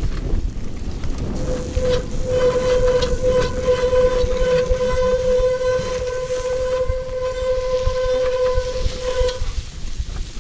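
Brakes of a downhill all-terrain wheelchair squealing with a steady, high whistle while held on during a descent. The squeal starts about a second and a half in and stops about a second before the end. Underneath runs a rough rumble of knobby tyres rolling over grass and wind on the microphone.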